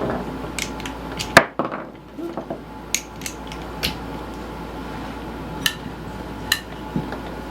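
Small metal parts and hand tools clinking and knocking while a push mower is reassembled, with a handful of separate sharp clicks. The loudest knock comes about a second and a half in.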